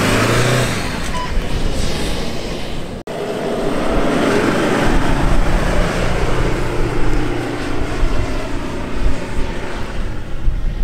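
4x4 SUV engine revving hard as it drives through soft dune sand, its tyres throwing up sand. About three seconds in the sound cuts to another SUV's engine working at high revs as it climbs a sand dune, the pitch rising and falling with the throttle.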